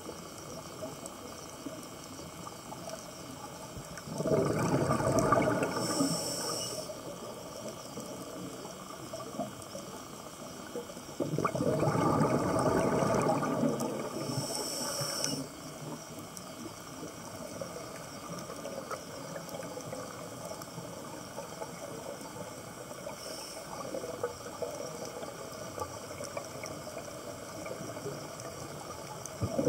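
Scuba regulator breathing heard underwater: two loud rushes of exhaled bubbles, about four and eleven seconds in, each ending with a short high hiss, over a steady underwater hiss.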